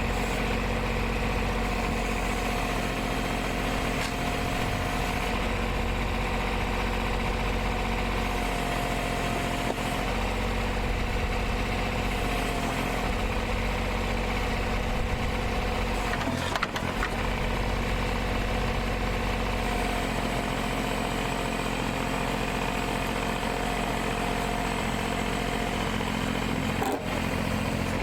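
Komatsu PC05-7 mini excavator's diesel engine running steadily as the machine works, with a higher whine that comes and goes.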